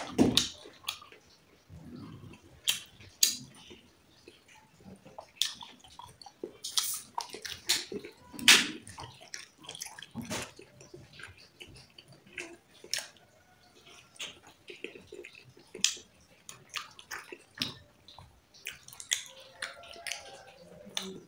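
Close-miked wet eating sounds: irregular sharp clicks and smacks of mouth and food, the loudest about 8.5 seconds in.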